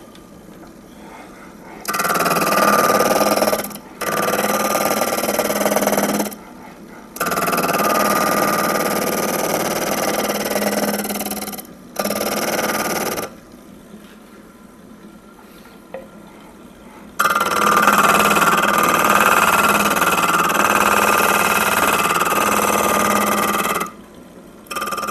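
Shop-built disc sander, a belt-driven disc on a shaft in pillow-block bearings, running with a steady hum while the end of a guitar neck's fretboard is pressed against the disc. Each of five passes gives a loud sanding rasp lasting one to several seconds, the longest near the end.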